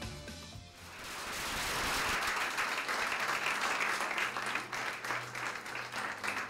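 Audience applauding, the clapping swelling in about a second in as music fades out, then tapering off near the end.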